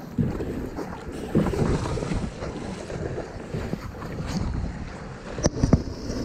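Water splashing and churning against a kayak's side as a seal fleeing a juvenile great white shark thrashes alongside, with wind buffeting the microphone. Two sharp knocks close together near the end.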